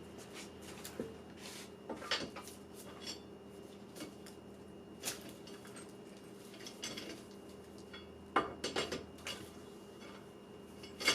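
Metal tools clinking and clattering irregularly, a dozen or so sharp knocks with a quick cluster about eight seconds in, over a steady electrical hum.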